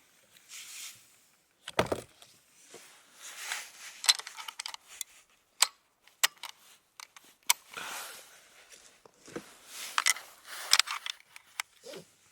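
Gear being handled: scattered sharp clicks and clinks mixed with short rustling swishes.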